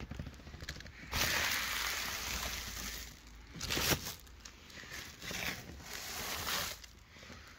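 Foam packing wrap crinkling and rustling as a heavy Blu-ray player is shifted about on it, with the loudest, longest crinkle starting about a second in, a single sharp knock about halfway, and softer rustles after.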